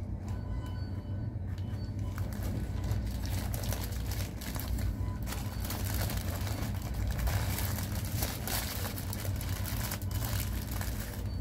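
Paper wrapper of a McDonald's breakfast sandwich rustling and crinkling as it is unwrapped by hand, over a steady low background hum.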